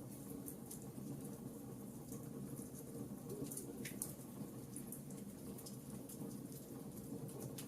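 Wood campfire burning: a steady low rush of flame with scattered sharp crackles and pops from the burning wood.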